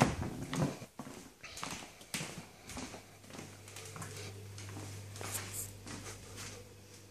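Footsteps on a wooden floor, irregular knocks that thin out after the first few seconds. From about three seconds in there is a low steady hum.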